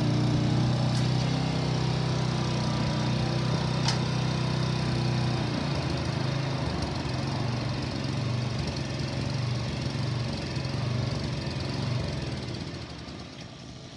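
Kubota TRS30 tiller's small engine running steadily; about five and a half seconds in its pitch drops and it carries on at a lower, less even speed, fading near the end.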